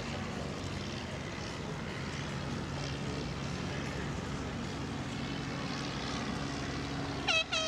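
Steady drone of an unseen engine, a low even hum, with a propeller aircraft the likeliest source. Near the end come two short, pitched, horn-like blasts, the second longer than the first.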